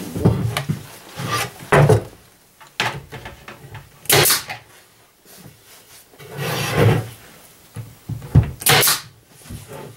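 Small wooden box being handled on a table: a string of wooden knocks and short scrapes as it is turned and set down, with a sharp scrape about four seconds in and another near the end.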